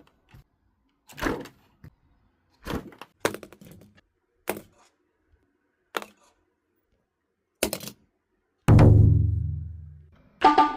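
A series of separate sharp thuds about a second or more apart, then a loud deep boom that rings down over about a second and a half, and a short pitched tone at the end.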